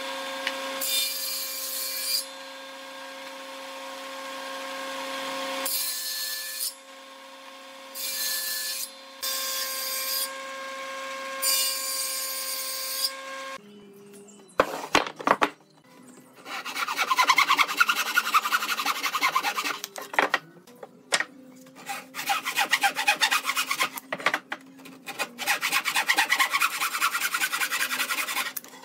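Woodworking on wood. In the first half a steady machine hum runs with intermittent bursts of cutting noise. From about halfway there are runs of rapid, rhythmic strokes of a hand tool rubbing or sawing across wood, in several stretches with short pauses between them.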